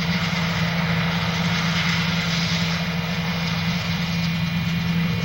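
An engine running steadily, with a constant low hum and no change in speed.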